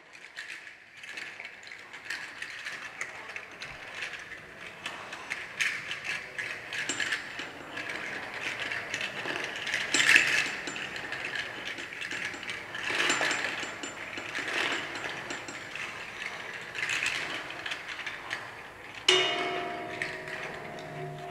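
Percussion music made of dense, uneven clicking and rattling, swelling into louder clusters now and then. About nineteen seconds in, a single sharp stroke sets off a ringing, pitched note.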